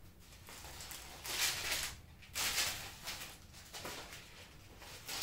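Large sheets of drawing paper rustling as they are lifted and turned over, in about three separate bursts.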